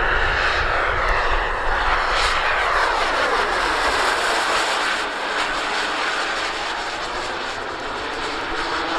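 Jet-powered RC scale model of a Messerschmitt Me 262 flying past with its twin model turbines running. The turbines' whine and rush drop sharply in pitch as the plane passes overhead two to four seconds in, then ease off a little as it flies away.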